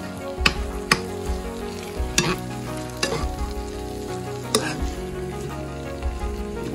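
Canned corned beef sizzling in a frying pan as a metal spoon and a silicone spatula break up the firm block, the spoon clicking against the pan several times.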